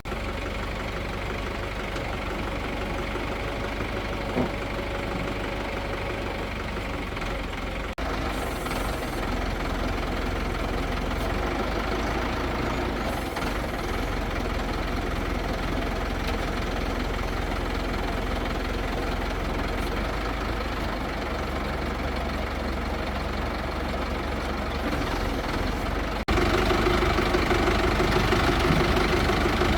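A crane's engine running steadily. It becomes abruptly louder about three-quarters of the way through.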